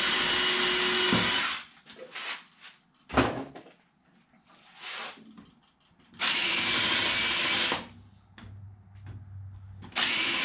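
Cordless drill boring countersink holes into pine strips for screw heads, run in three short bursts of steady whine: one stopping about a second and a half in, one in the middle, and one starting near the end. Between the bursts there are small knocks and one sharp knock about three seconds in.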